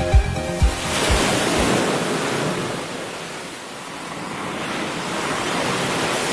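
Ocean surf: waves breaking and washing up a sandy beach, swelling about a second in, easing, then swelling again near the end. The last few low beats of background music fade out in the first second and a half.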